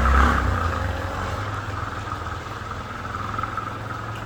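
Street sound: a motor vehicle's engine hum fading out within the first second or so, over a steady high buzz.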